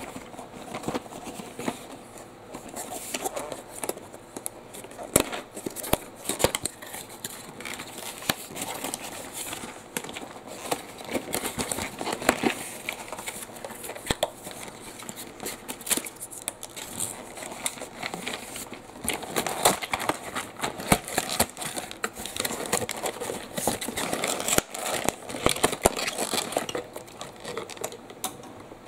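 Cardboard toy-train packaging being handled and opened by hand: irregular rustling, crinkling and scraping, broken by sharp clicks and taps.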